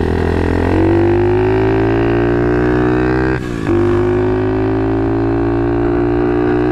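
SSR 110 pit bike's small four-stroke single-cylinder engine droning under way in gear, its pitch slowly climbing. It breaks off briefly about three and a half seconds in, then picks up again at a steady pitch.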